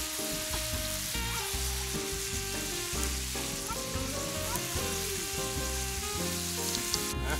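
Fresh chanterelle mushrooms sizzling steadily as they fry in oil in a pan.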